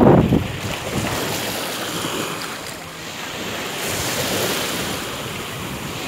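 Small waves breaking and washing up a sandy shore, a steady hiss of surf that swells about two-thirds of the way in. Wind buffets the microphone with a low rumble at the very start.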